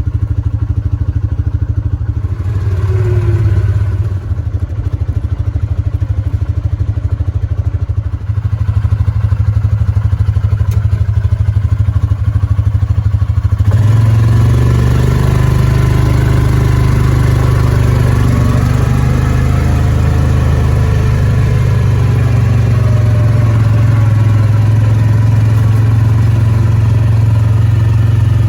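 Small vehicle engine running steadily as it is driven, a low drone that steps up louder and fuller about fourteen seconds in and holds there.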